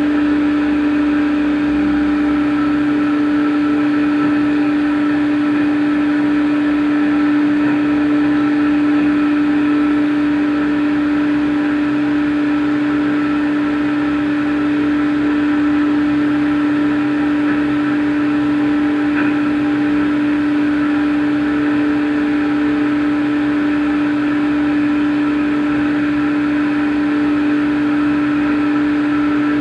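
CNC machine running with a steady whine that holds one constant pitch throughout.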